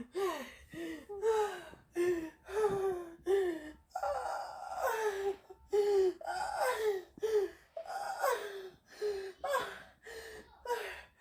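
A woman moaning and gasping in distress, a quick run of short cries that each fall in pitch, about one and a half a second.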